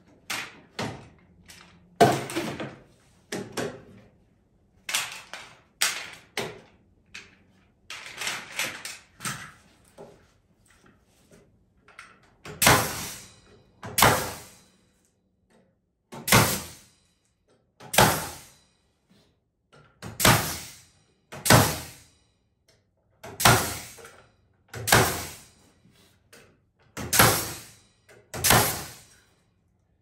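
Pneumatic nail gun firing nails into wooden boards, in pairs: two shots about a second and a half apart, five times over, each a sharp crack with a short hiss trailing after it. Before that, a run of lighter knocks and clatter.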